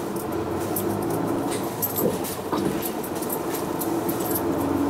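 Cabin sound of a 2015 Hino Blue Ribbon II (QPG-KV234N3) non-step city bus on the move: the diesel engine runs with a steady low drone, with many light clicks and rattles from the interior over it.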